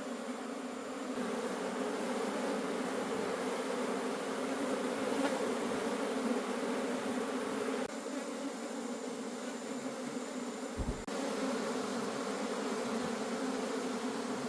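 A wild honey bee colony buzzing in a dense, steady hum. There is one short low thump about three-quarters of the way through.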